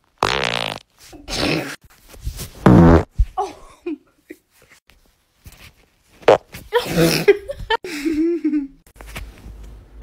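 A series of human farts, several separate buzzy blasts. The longest and loudest comes about three seconds in, and more follow around the seventh second.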